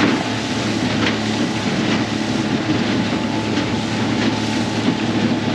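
Aluminium runabout underway, its 40 hp Yamaha outboard running steadily with a low hum under a loud, even rush of wind and water.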